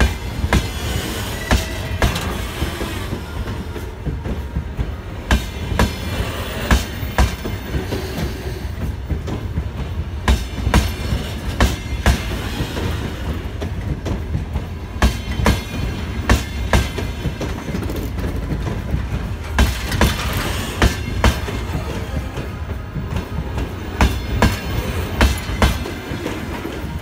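Passenger train coaches rolling past close by, over a steady low rumble. The wheels click over the rail joints in repeated groups.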